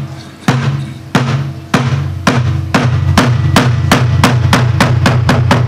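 Samulnori percussion ensemble of buk barrel drum, janggu hourglass drum, kkwaenggwari small gong and jing gong playing together over a low ringing hum. The strokes start slow, about one every half second, and speed up steadily to several a second.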